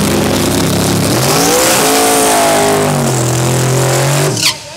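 Chevrolet S-10 drag truck doing a burnout, its engine held at high revs while the rear tyres spin and smoke. The revs climb a little partway through, settle lower, then cut off abruptly near the end.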